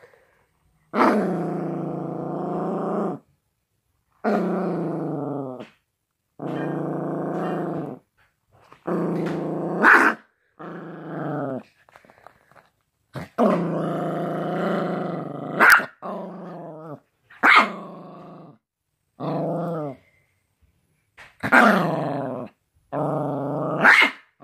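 Miniature pinscher puppy growling in about ten bouts of one to three seconds, several ending in a sharp bark: resource guarding of a cigarette pack against a reaching hand.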